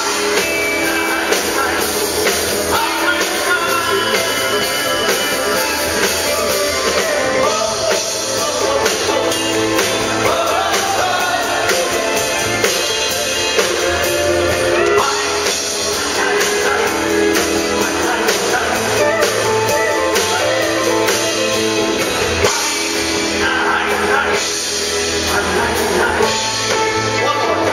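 Live country band playing: strummed acoustic guitar and drum kit with a man singing into the microphone, heard through the stage PA.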